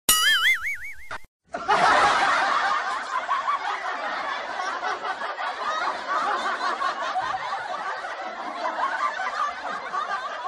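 A brief wobbling, warbling sound-effect tone lasting about a second, then after a short gap a long stretch of canned laughter, many voices snickering and chuckling at once.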